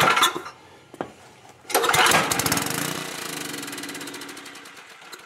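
Small Tecumseh generator engine being pull-started. About two seconds in it fires and runs on fuel primed into the cylinder, then slows steadily and dies away near the end, which the owner takes for the engine not getting fuel.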